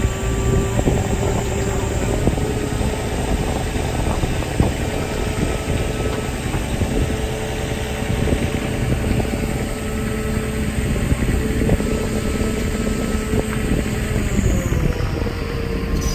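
Engine of a self-propelled heavy-haul trailer's power module running steadily with a steady whine, the whine stepping up slightly in pitch near the end. Wind rumbles on the microphone.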